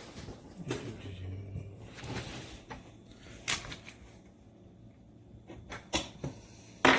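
Metal clamp parts of a monitor stand being handled and fitted to a desk: a few sharp knocks and clicks with soft handling noise between, the loudest knock near the end.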